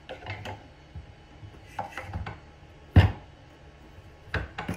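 Plastic spacer jigs being set down on a plywood board and slid under the edge of a router sled: a handful of separate knocks and clacks, the loudest about three seconds in.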